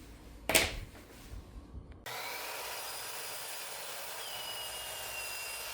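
A power saw cutting through a pine board: a steady whirring noise that starts suddenly about two seconds in. A short, sharp knock or scrape comes about half a second in.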